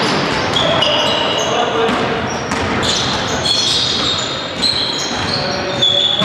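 Basketball game in play in a sports hall: the ball bouncing on the court and shoes squeaking in many short, high chirps, over indistinct voices.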